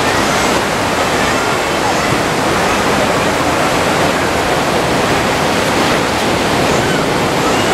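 Sea surf breaking on a sandy beach, a steady, loud rush of waves.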